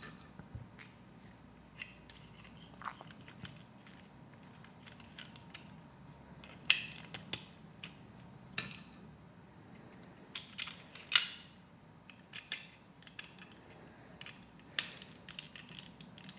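Plastic Lego Technic pieces clicking and clattering as they are handled and fitted together: a scatter of small sharp clicks, with a few louder bunches of clicks.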